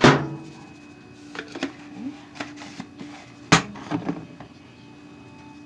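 Clicks and taps of a seasoning container being handled as seasoned salt is shaken out: a sharp click at the start, another about three and a half seconds in, and lighter taps between, over a faint steady hum.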